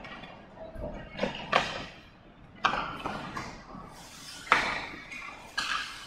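Ice hockey play: about five sharp clacks and scrapes of sticks, puck and skates on the ice, each echoing round the rink. The loudest comes a little past midway.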